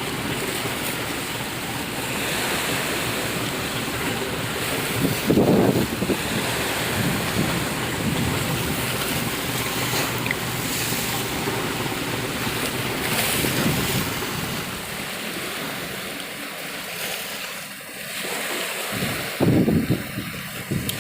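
Wind buffeting the microphone over a steady rush of sea water, with heavy gusts about five seconds in and again near the end.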